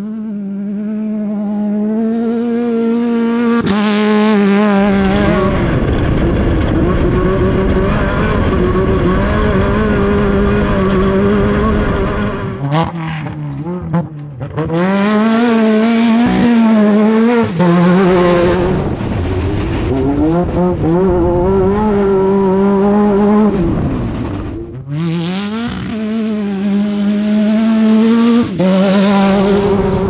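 Off-road race buggy's engine at high revs, its pitch rising and falling as the throttle opens and closes through turns. The sound breaks off and changes abruptly several times where separate passes are joined.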